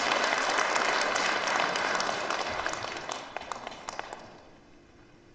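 Audience applauding, the clapping thinning out and dying away about three to four and a half seconds in.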